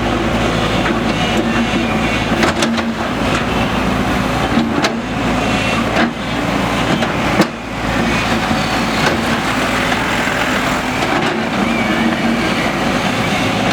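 JCB 3DX backhoe loader's diesel engine running steadily under working load, with a few sharp knocks, the loudest about seven and a half seconds in.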